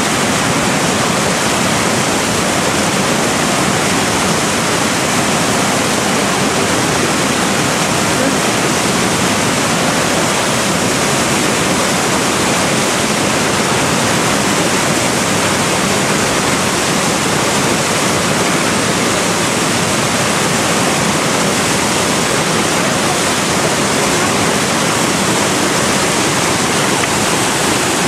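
Loud, steady rush of river rapids: whitewater churning and breaking in big waves close by.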